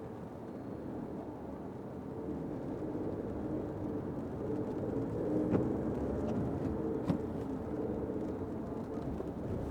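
Fiat 500X driving in the rain, heard from inside the cabin: a steady rumble of road and engine noise that grows a little louder over the first few seconds as the car picks up speed. There are a couple of short sharp knocks about halfway through.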